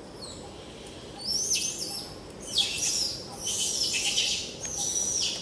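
A run of shrill, high-pitched animal calls, four or five squealing bursts with short falling glides, starting about a second in.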